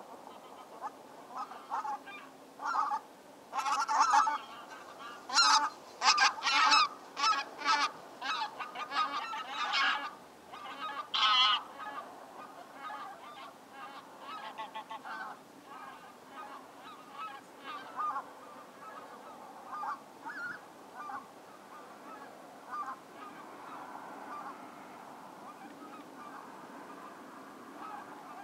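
Geese honking, many overlapping calls at once: a loud burst of calling about four to twelve seconds in, then fainter, scattered honks.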